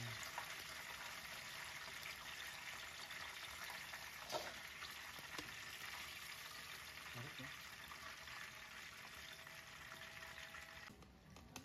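Breaded chicken pieces deep-frying in hot oil: a steady crackling sizzle, with a sharp knock about four seconds in. The sizzle cuts off near the end.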